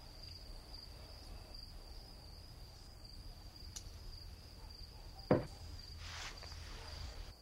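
Faint steady chirring of night crickets over a low rumble of room tone, with one short knock about five seconds in and a brief soft hiss just after it.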